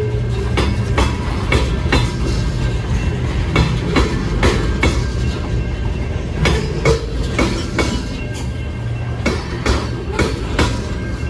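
Covered hopper cars of a fast freight sand train rolling past close by. The steel wheels give a steady low rumble, with sharp clacks of the wheel trucks over the rail about once or twice a second.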